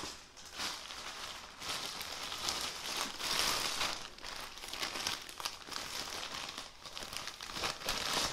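Clear plastic wrapping crinkling and crackling continuously as it is unwrapped by hand.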